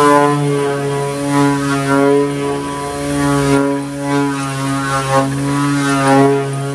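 Electric orbital sheet sander running steadily while sanding the edge of an MDF panel, a constant motor hum whose pitch and loudness waver slightly as it is pushed back and forth along the edge.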